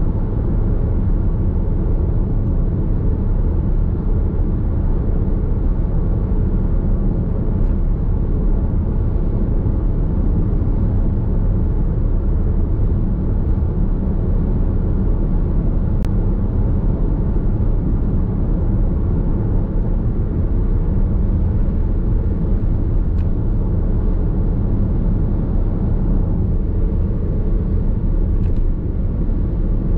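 Steady road and tyre noise of a Nissan X-Trail Hybrid cruising on an expressway, heard inside the cabin as an even low rumble, with a couple of faint ticks.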